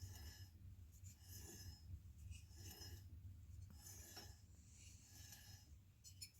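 Faint rubbing strokes, about one every second and a quarter, as the chainsaw cylinder mounted in the lathe is turned over by hand, with a low steady hum under them.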